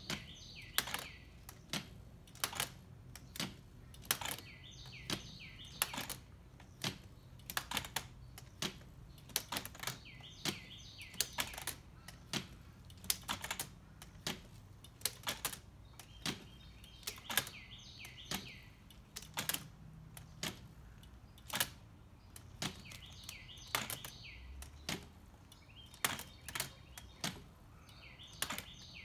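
Homemade plywood wheel turning on its axle, its levers and string mechanism clacking and knocking irregularly, a few knocks a second. Birds chirp in the background.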